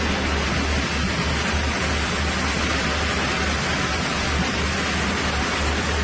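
Sawmill line machinery running: a steady, even rush of noise over a low electric-motor hum, with no single cut or impact standing out.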